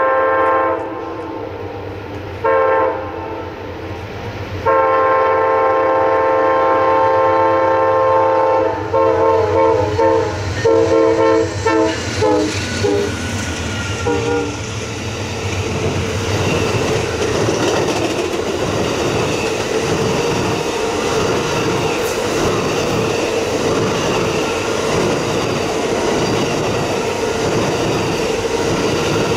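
Locomotive air horn on an approaching Amtrak Auto Train, a Superliner bilevel train, sounding a series of blasts: two brief ones, a long one of about four seconds, then a run of short choppy toots. The train then rolls past close by with a steady rumble and rhythmic clatter of wheels over rail joints for the second half.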